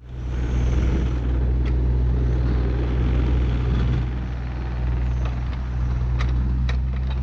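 Diesel engine of heavy equipment running steadily with a low, even hum, with a few light clicks over it.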